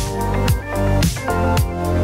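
Upbeat background music with a steady drum beat, about two beats a second, under sustained instrumental notes.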